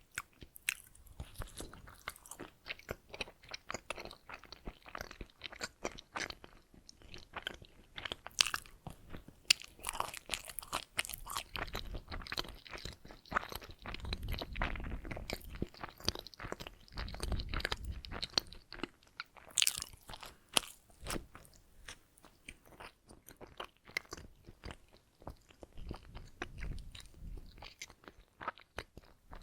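Close-miked chewing and biting of donuts: a dense, irregular run of small wet mouth clicks, with heavier low thumps of chewing in the middle.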